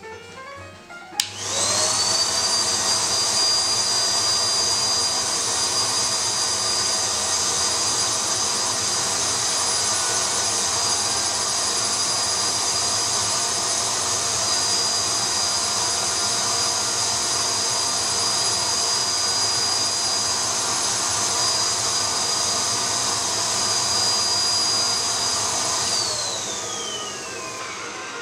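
Vacuum cleaner motor built into a homemade record-cleaning machine, drawing cleaning fluid off a vinyl record through the suction arm. It starts with a click about a second in, its whine quickly rises to speed, it runs loud and steady, then near the end it is switched off and winds down with a falling whine.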